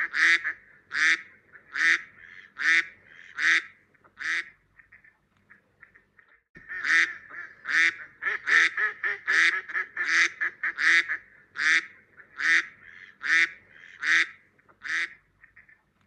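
Duck quacking: a long series of repeated quacks, about one to two a second, with a pause of about two seconds near the middle.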